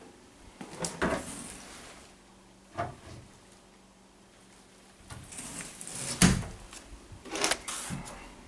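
A few scattered knocks and scuffs, the loudest a thump about six seconds in.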